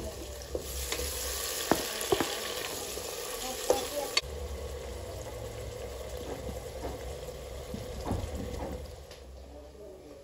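Food sizzling in a frying pan while being stirred, with a few sharp clicks of the utensil against the pan. The sizzle is strongest in the first four seconds, then settles lower.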